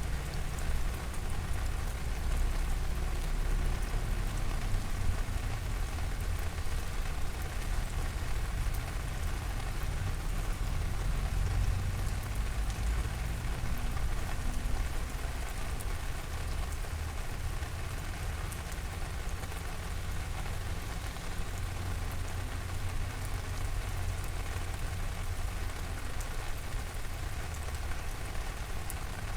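Steady rain falling, an even hiss of drops with faint scattered ticks, over a constant low rumble.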